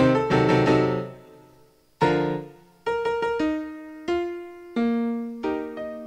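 Solo piano music: a quick run of notes dies away about a second in, then after a short pause a chord is struck and slower single notes and chords follow.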